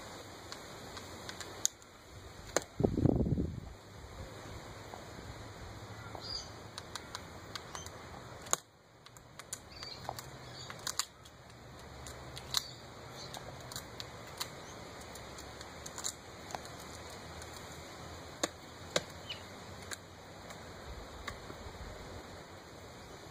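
A young kookaburra knocking a snail against a hard edge: sharp, irregular clicks and knocks of the shell being struck and cracked, over a faint steady hiss. A brief low rumble about three seconds in is the loudest sound.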